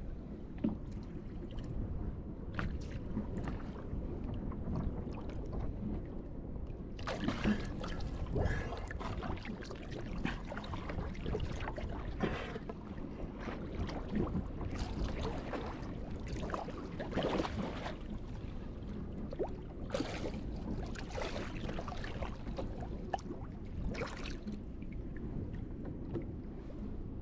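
Water sloshing and splashing against a boat hull, with irregular splashes from about seven seconds in as someone in the water frees fishing rope wrapped around the propeller, over a steady low rumble.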